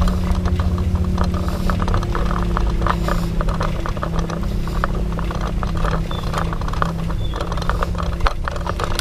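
Bicycle rattling and clattering over a rough road, with dense irregular clicks over a steady low hum.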